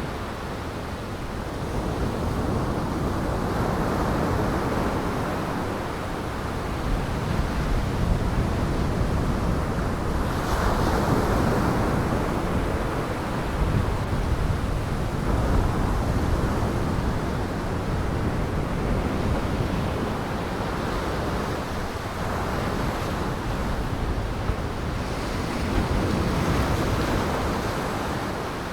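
Heavy surf and gale-force wind on the Lake Michigan shore: a dense rushing noise that swells and eases every few seconds as waves break.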